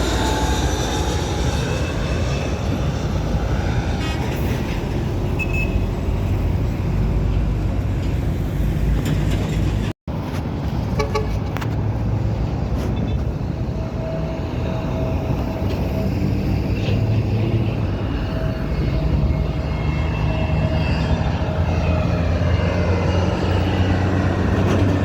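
Jet airliner engines passing low overhead as planes come in to land: a loud, continuous rumble with sweeping tones, broken by a brief dropout about ten seconds in, then a steady engine whine over the rumble.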